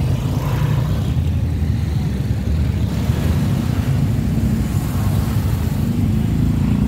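Steady low engine rumble of a motorized tricycle, heard from inside the sidecar as it rides along.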